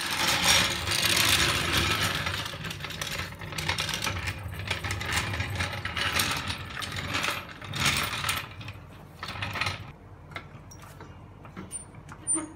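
Steel Pro-Lift hydraulic floor jack clanking and rattling on a concrete floor as it is rolled in and pumped to lift the front of a ride-on mower, in several loud surges that die down after about ten seconds to a few light ticks.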